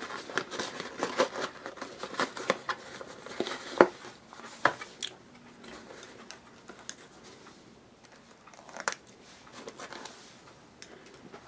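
Plastic blister packaging and its card backing crinkling, snapping and tearing as a small soft camera case is pulled free, with the loudest sharp snaps about four and five seconds in. After a quieter stretch, the fabric case rustles and clicks as it is handled.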